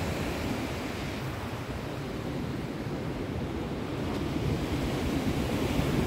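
Sea wind buffeting the phone's microphone in an uneven low rumble, with sea surf washing behind it.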